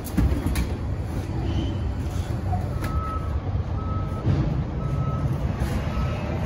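A vehicle's reversing alarm starts about three seconds in, beeping once a second on a single high tone, over a low engine rumble. A thump comes right at the start.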